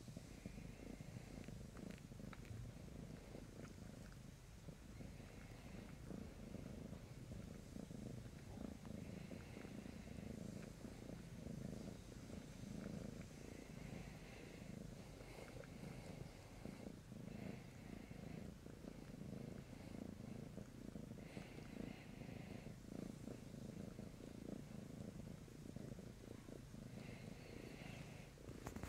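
A tabby cat purring steadily and quietly at close range while kneading its plush bed, with brief faint rustles every few seconds.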